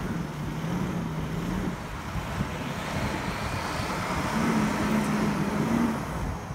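Off-road vehicle's engine running under way, its note fading in the middle and coming back higher, over a rough rumble.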